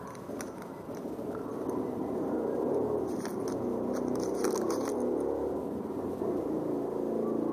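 A person biting into and chewing a tea-flavoured snack close to the microphone, with a run of sharp crackles around the middle.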